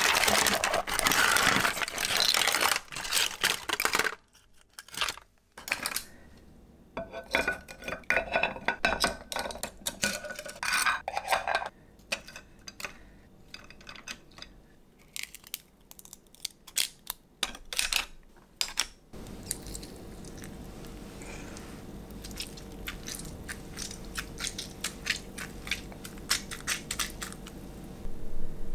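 Steamed shellfish and prawns clattering as they are tipped from a steamer pot into a stainless steel tray, then metal tongs clicking against shells and a plate as they are picked up and arranged. A low steady hum comes in about two-thirds of the way through.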